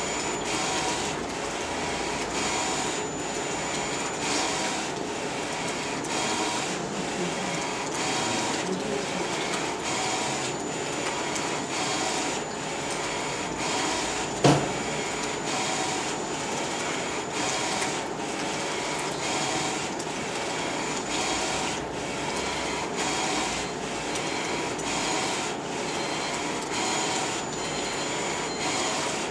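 Flatbed digital T-shirt printer running, its inkjet print-head carriage shuttling back and forth over the platens. It makes a steady mechanical whir with a regular click about every two-thirds of a second. A single louder knock comes about halfway through.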